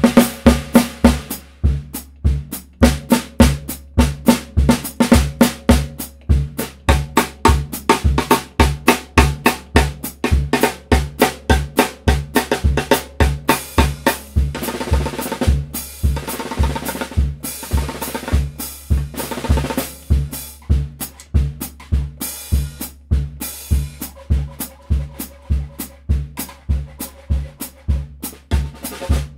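Snare drum played with wooden sticks in quick, varied strokes over a steady bass-drum pulse about twice a second. Around the middle there is a denser, rolling stretch.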